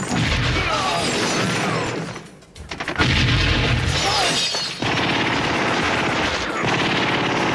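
Film soundtrack of a shootout: rapid gunfire and bangs mixed with music, with glass smashing as a body crashes through a window. The firing dips briefly about two seconds in, then comes back suddenly and loud.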